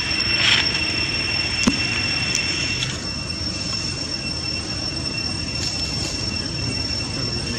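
A steady high-pitched whine held at one pitch throughout, over a rough low background rumble, with one short click.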